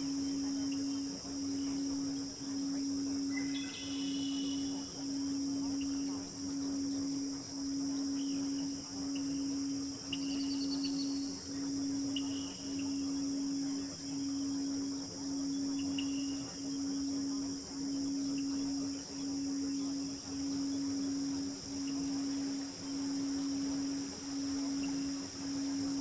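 A steady low tone that swells and dips about every second and a quarter, layered over a nature recording of crickets chirring, with scattered short high chirps.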